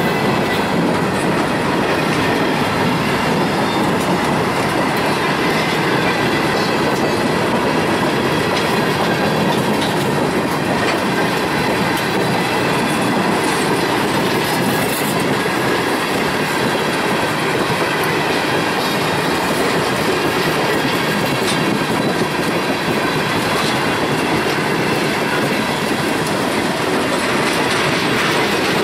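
Freight train cars rolling past close by: steady rumble and clatter of steel wheels on the rails, with no change in loudness.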